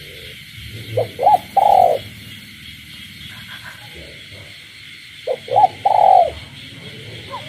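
Spotted dove cooing: two phrases about four seconds apart, each two short notes followed by a longer, drawn-out coo. Beneath them runs a steady high chorus of frogs.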